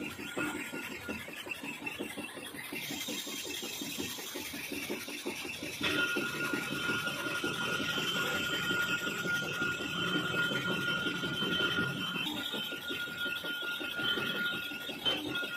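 Metal lathe turning a steel bevel pinion blank, the cutting tool taking a continuous cut. A steady high whine joins the cutting noise about six seconds in, with a short break near twelve seconds.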